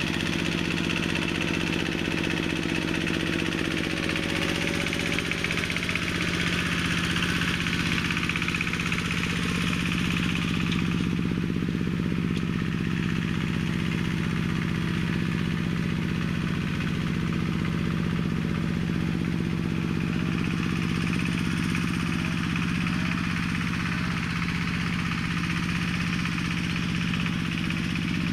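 Engine of a homemade minitractor built from a walk-behind tractor, running steadily as it drives across a field.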